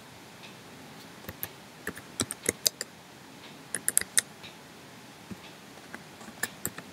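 Typing on a computer keyboard: short, irregular runs of key clicks with pauses between them.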